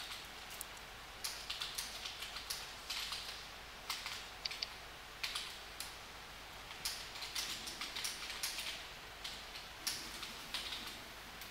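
Computer keyboard keys clicking in irregular bursts of quick strokes.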